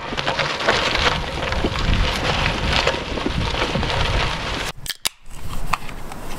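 Gravel bike tyres crunching and crackling over a loose dirt-and-gravel road, with wind buffeting the microphone. The sound drops out briefly a little under five seconds in, then resumes.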